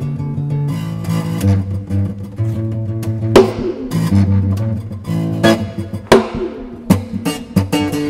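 Acoustic tenor bass guitar, tuned to a drone, played with low notes held under sharp strums and strikes, each strike ringing out in the long echo of a concrete drainage tunnel.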